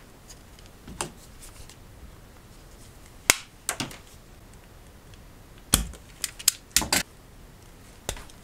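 Sharp clicks and snips of hard plastic in a few scattered groups: a small plastic charger case and its cable being worked by hand and snipped with cutters.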